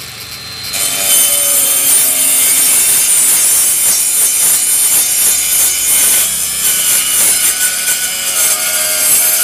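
DeKton M21-CS05BL brushless 21 V cordless circular saw with a multi-purpose carbide-tipped blade, cutting through a thick steel pipe. It spins up about a second in and then runs as a steady, loud, hissing grind with a motor whine underneath for about eight seconds.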